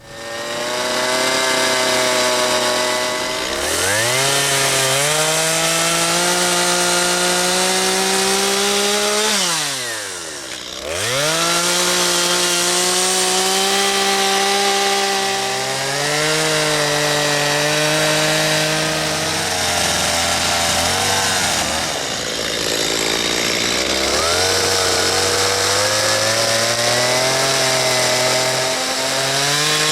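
Two-stroke chainsaw carving into a white oak stump. The engine pitch rises and sags as it revs and bogs under load. It drops almost to idle about ten seconds in and revs straight back up, and runs lower and rougher for a few seconds around twenty seconds in before picking up again.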